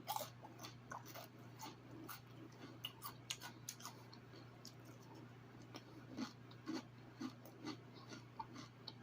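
Close-up chewing: faint, irregular wet mouth clicks and smacks of someone eating, over a steady low hum.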